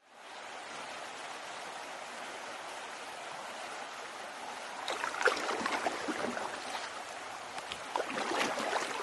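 Steady rush of flowing water, with small splashes and drips joining in from about five seconds in.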